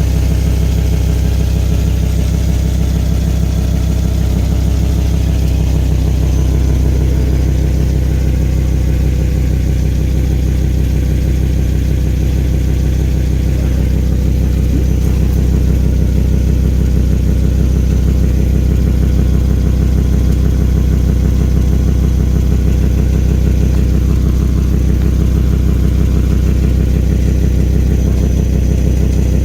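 Volvo V70 XC's turbocharged five-cylinder engine idling steadily with fast, even exhaust pulsing, the sound of leaks in its exhaust.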